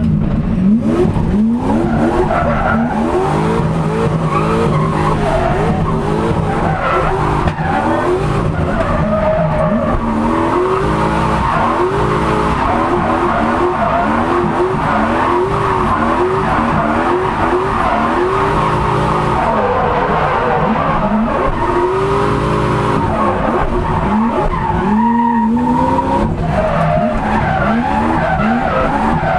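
Turbocharged Lexus 1UZ-FE V8 (HX40 turbo) in a Nissan 200SX drift car, heard from inside the cabin. It revs up and down over and over through the drift, with tyres squealing and skidding.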